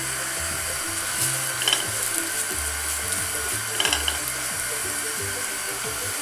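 Sliced shallot sizzling in hot oil in a nonstick pan, with two short scraping clicks from a silicone spatula stirring it, about a second and a half in and again near four seconds. Background music with a steady low bass line plays throughout.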